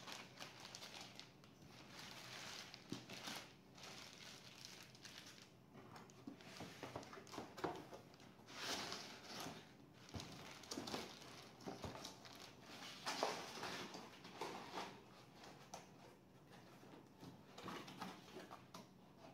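Faint, irregular handling noises: small clicks, taps and rustles, louder in a few clusters around the middle.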